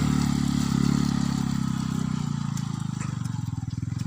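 Motorcycle engine running under steady throttle, then easing off after about two seconds and becoming quieter with a pulsing beat.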